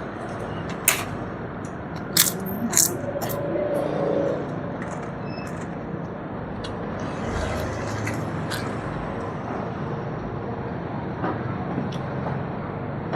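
Eating at the table: a few sharp crunches and clicks in the first few seconds, then quieter, over a steady background hum.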